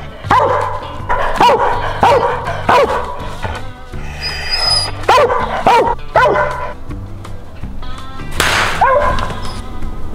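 Hunting dog barking treed at a squirrel, a string of single barks with short pauses, over background music.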